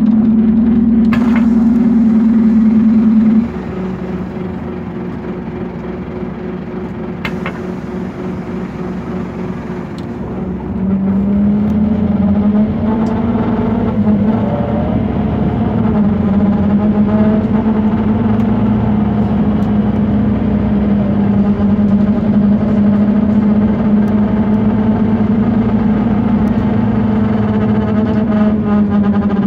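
Scania K230UB city bus driving, heard from inside, with a loud steady droning hum. The hum stops about three and a half seconds in and comes back about eleven seconds in, with two sharp ticks along the way. The bus is faulty and the cause of the noise is unknown.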